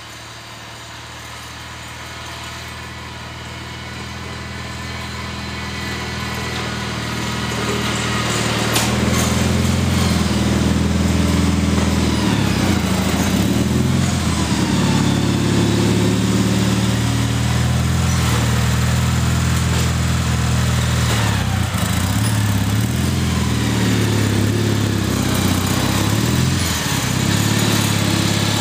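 Gravely garden tractor's engine running as the tractor plows snow. It grows steadily louder over the first nine seconds or so as the tractor approaches, then holds loud, its pitch wavering up and down as it passes and pushes snow.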